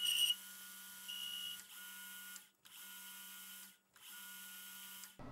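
Metal lathe running with a steady hum while a chamfering tool cuts the end of the spinning workpiece, giving a high squeal of tool chatter at the start and again about a second in. The sound cuts out briefly twice.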